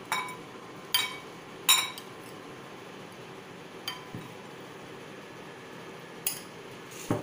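Steel spoon clinking against glass bowls while scooping a chopped vegetable mixture: about six separate taps, each ringing briefly, with a duller knock near the end.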